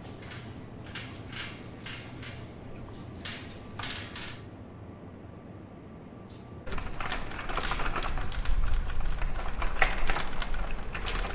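A few separate clicks and knocks, then about two-thirds of the way in a louder, continuous rattle of a wire shopping trolley being pushed over asphalt, its wheels clattering.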